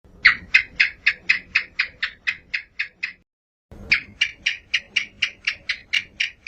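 Common house gecko (cicak) calling: two quick runs of sharp chirps, about four a second, with a short pause about three seconds in.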